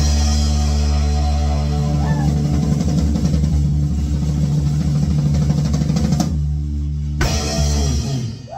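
Rock band with drum kit, bass and electric guitar playing the close of a song: busy drumming under held low chords, then a final hit about seven seconds in, with the chord ringing out and fading.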